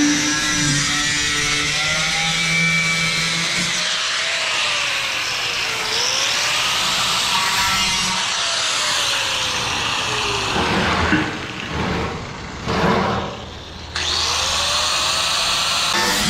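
Angle grinder with a cutoff disc cutting through a thin steel drum. The motor's pitch sags and recovers as the disc bites. It drops out briefly a few times past the middle, then runs steadily again near the end.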